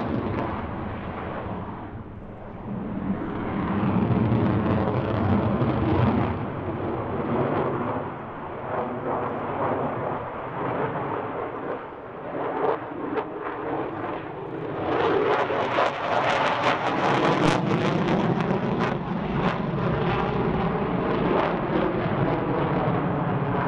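F-16 fighter jet engine roaring as the jet maneuvers overhead, with a slowly wavering, phasing tone and ragged crackle. It dips briefly twice, then swells louder and crackles harder from about fifteen seconds in.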